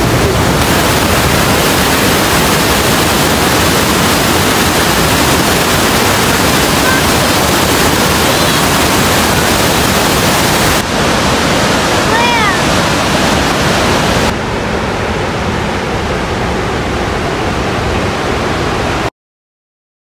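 The Rhine Falls waterfall: a loud, steady rush of churning water that cuts off suddenly near the end.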